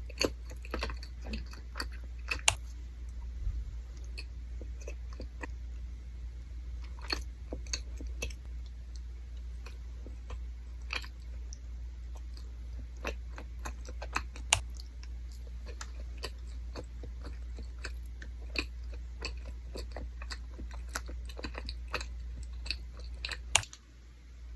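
Close-miked chewing of Korean rice cake (tteok): irregular sharp mouth clicks and bites, with a few louder ones.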